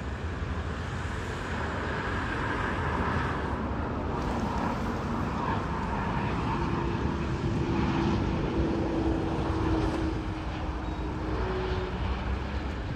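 Twin-engine business jet on low final approach, its rear-mounted jet engines making a steady rushing whine that swells toward the middle and eases off near the end. A faint steady hum joins about halfway through.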